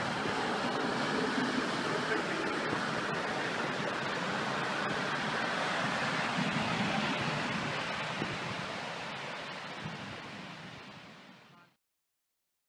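Steady rushing of surf breaking along a beached ship's hull. It fades over the last few seconds, then cuts off to silence.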